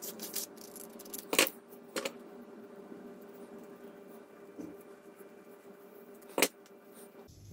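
A sheet of scrapbook paper is handled and snipped with scissors. Three short, sharp snips come about a second and a half in, at two seconds, and near the end, over a faint steady hum.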